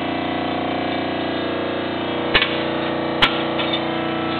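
Hydraulic power unit of a homemade metal shear running steadily with an even hum, the machine switched on and idling with the blade at rest. Two short sharp knocks come about a second apart in the second half.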